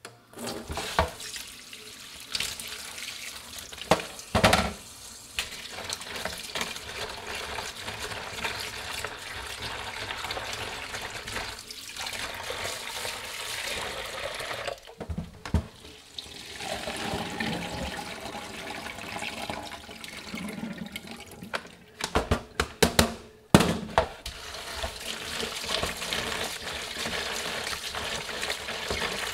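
Kitchen tap running into a plastic basin of shredded potato in a stainless steel sink, the water splashing as a hand swishes the strips to rinse off their starch. A few short knocks break in now and then.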